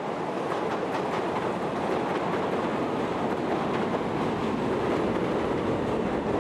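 Chicago 'L' elevated train running on the steel track structure overhead: a steady, loud rail noise that does not let up, swelling a little after the first couple of seconds.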